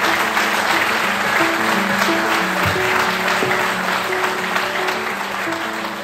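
Audience applauding, the clapping thinning out toward the end, while a string instrument plays a single-line tune.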